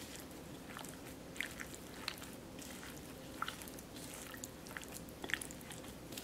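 A plastic-gloved hand mixing cornstarch into egg-coated tilapia pieces in a bowl: irregular soft wet squishes and small crinkles of the plastic glove, over a faint steady hum.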